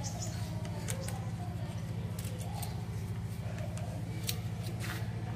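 Sharp light clicks and taps, a handful spread over a few seconds, from a wire-mesh birdcage being handled, over a steady low hum.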